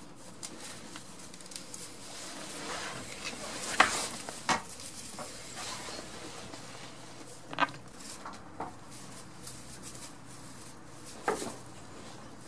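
Goat kids' small hooves tapping and rustling on a straw-bedded wooden stall floor as they step and hop about: a low background rustle broken by about five short, sharp knocks, the loudest about four seconds in.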